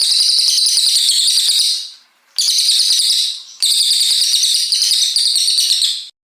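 Brown cililin songbird singing long runs of fast, high chattering notes in three phrases, the middle one short, stopping abruptly just before the end.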